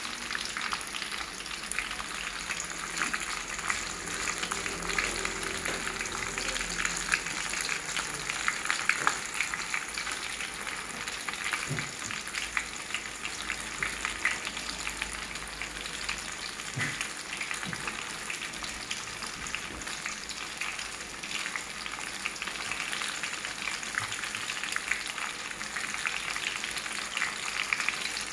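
Battered banana fritters frying in hot oil in a wok: a steady, dense crackling sizzle as the batter cooks.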